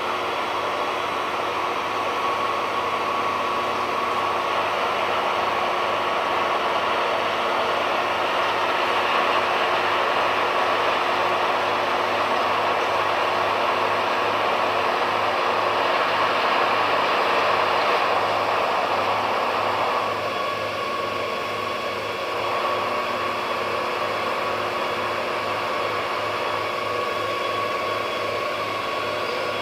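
A large car ferry's engines and ventilation machinery running as it comes alongside the quay: a steady mechanical hum and hiss with a few held tones and a low throb pulsing a couple of times a second.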